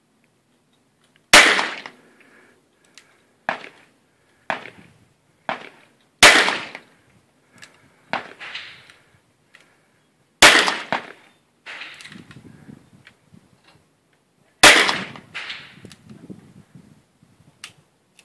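An Arminius .38 Special revolver fired four times, one shot about every four seconds, each a sharp crack with a short ringing tail. Fainter, sharper cracks come in between the loud shots.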